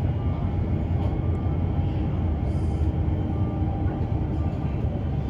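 Steady low rumble of a suburban electric train's wheels and running gear, heard from inside the carriage, with faint steady whining tones above it.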